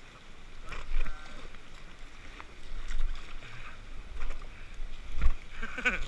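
Whitewater rushing around an inflatable raft, with sharp paddle splashes and knocks every second or two and low rumbles of wind on the microphone.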